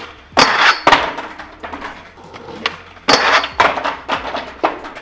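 Skateboard trucks hitting and scraping a metal handrail on a 50-50 grind attempt, followed by the board clattering on concrete. The loud crash comes twice, about three seconds apart.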